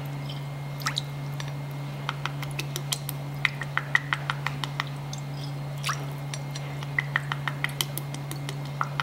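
Fish sauce poured spoonful by spoonful from a metal spoon into a glass bowl of lime juice: a scatter of light drips and small ticks in short runs. A steady low hum sits under it throughout.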